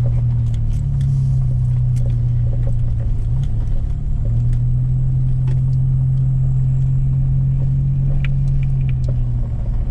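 Pickup truck driving on a rough road, heard from inside the cab: a loud, steady low drone of engine and road noise that shifts pitch slightly a couple of times, with scattered small clicks and knocks.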